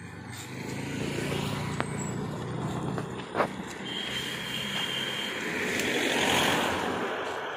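Motor traffic passing close by on the road: an engine swells up about a second in, and a louder pass rises and fades near the end. A single sharp click sounds about halfway through.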